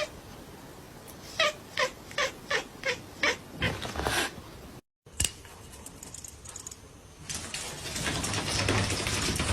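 A cat calling over and over, about eight short calls in quick succession. After a break, a steady rushing noise runs through the last couple of seconds.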